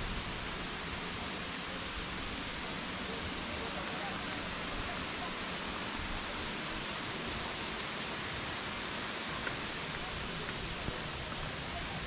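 An insect chirping in a rapid, even trill of high pulses. It fades over the first few seconds and then goes on faintly over a steady outdoor hiss.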